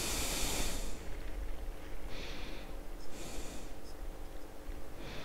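A person breathing: several short, airy puffs of breath about a second apart.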